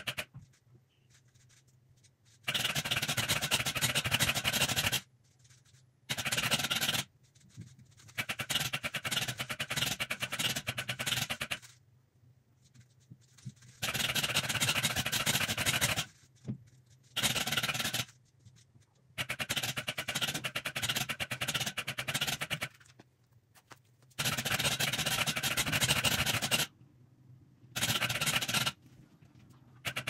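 MoYu cube-solving robot's motors rapidly turning the faces of a 3x3 speed cube: a dense clatter of clicks in about eight bursts, each one to three and a half seconds long, with short quiet pauses between. The robot is scrambling and solving the cube in its repeating loop.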